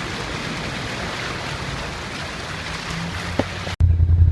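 Steady rushing noise like moving water or wind. Near the end it cuts off suddenly into a loud, steady low drone.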